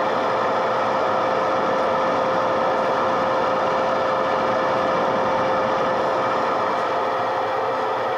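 Klarstein air fryer running at 230 °C. Its fan makes a steady whooshing noise with a constant mid-pitched hum.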